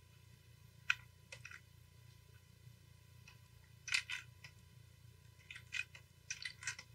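Short, faint clicks and taps from computer input devices at a desk: a single click about a second in, then small clusters of quick clicks around four seconds and near the end, over a low steady hum.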